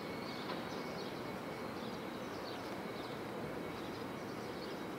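Steady outdoor background noise, an even hum with a faint steady high tone through it and a few faint high chirps.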